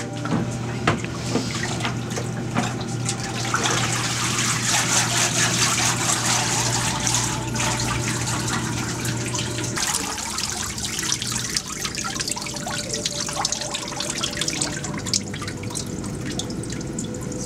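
Water sloshing in a papermaking vat as a large wooden mold and deckle is dipped and worked through the pulp slurry, then water dripping and trickling back into the vat through the mold's screen. The splashing is heaviest a few seconds in.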